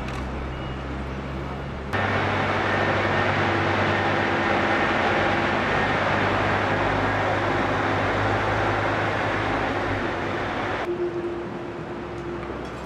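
A loud, steady rumbling drone with a faint steady hum in it. It starts suddenly about two seconds in and eases off near the end.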